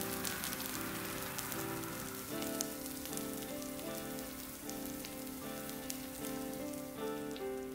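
Food sizzling and crackling on a hot cast-iron plate, the crackles dense at first and thinning out after about three seconds. Background music with sustained notes plays throughout.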